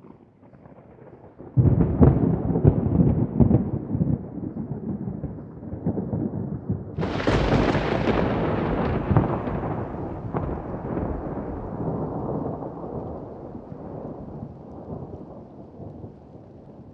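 Thunderstorm sound effect: thunder breaks with a crackling rumble about a second and a half in, a second, sharper thunderclap with rain follows around seven seconds, and the rumble slowly dies away.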